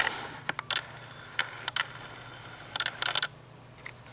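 Sharp clicks and short bursts of quick ticking from a Nikon D3200 DSLR and its lens, picked up by the camera's built-in microphone, over a steady low hum. The loudest click comes at the very start, and the densest ticking about three seconds in.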